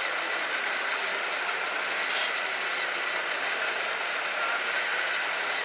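Steady mechanical running noise from RC model construction machines, with a faint high whine held throughout and no deep bass.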